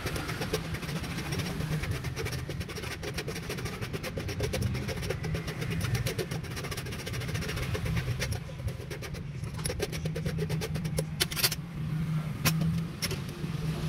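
Metal spoon scraping and clinking against a metal drink filter, with a run of small clicks and a few sharper taps later on, over a steady low hum of street traffic.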